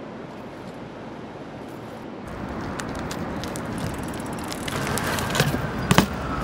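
Outdoor street and traffic noise that grows louder about two seconds in, with two sharp knocks near the end and a faint siren wail, slowly falling in pitch, coming in over the last second or so.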